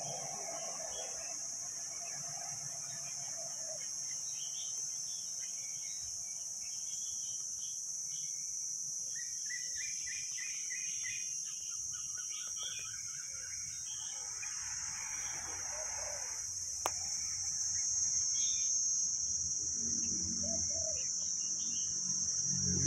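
A steady, high-pitched insect drone that never lets up, with short chirps and runs of quick repeated notes from caged young red-whiskered bulbuls, mostly around the middle. A single sharp click sounds about two-thirds of the way through.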